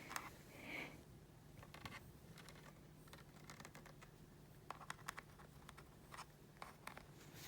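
Faint, scattered clicks and taps on laptop keys, coming in small clusters, over a steady low hum.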